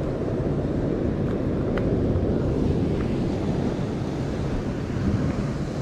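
Steady wind noise on the microphone, with the wash of ocean surf against the rock ledge beneath it.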